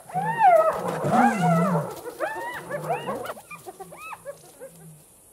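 Several spotted hyenas calling together: overlapping yelping, rising-and-falling calls, loudest in the first two seconds, then shorter calls tapering off.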